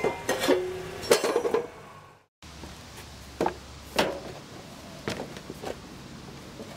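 A steel plate clanking against a steel drum, the knocks ringing with a metallic tone, for the first second and a half. After a short break, a few scattered light knocks.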